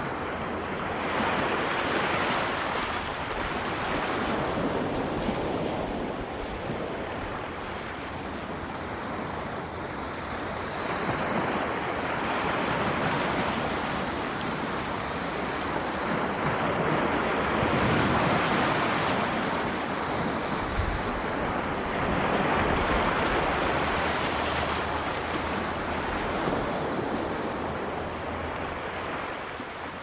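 Sea surf: small waves breaking and washing up the shore, the wash swelling and easing every several seconds.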